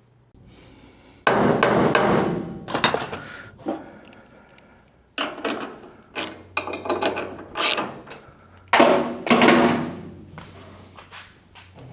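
A series of about six loud knocks and bangs on metal, each ringing and rattling briefly, with pauses of one to two seconds between them.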